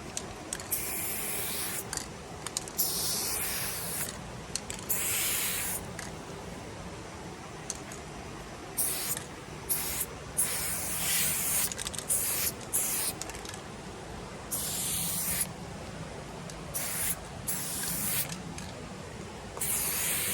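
Aerosol spray-paint can spraying a graffiti piece in about a dozen hissing bursts, some short taps and some strokes over a second long, with pauses between.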